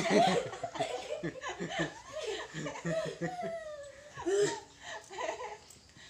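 A woman and children laughing in quick bursts, loudest at the start and trailing off near the end.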